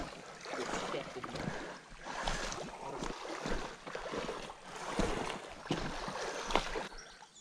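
Footsteps on rock and rustling through dry twigs and brush, with scattered light clicks over a steady hiss of flowing river water.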